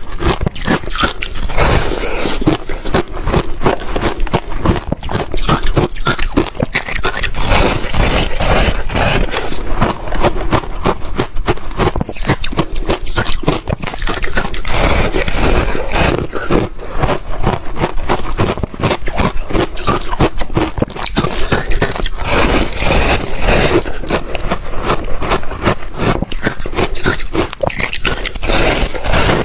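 Ice being crunched and chewed in the mouth: a dense, unbroken run of sharp crunches.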